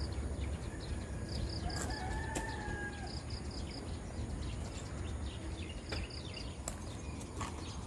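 A rooster crows once, about two seconds in, one held call that rises a little and then levels off. Short high chirps come in quick groups of three or four over a steady low rumble.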